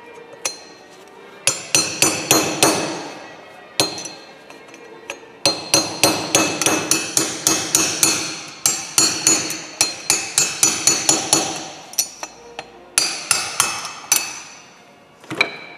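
Hammer blows on a steel drift knocking the old wheel-bearing outer race out of a Ford Transit front hub: quick runs of ringing metallic strikes, about four a second. They come in three spells: about a second and a half in, a long one from about five and a half seconds to twelve, and a short one near the end. The bearing being removed is worn and had made a crunching noise in the front-left wheel.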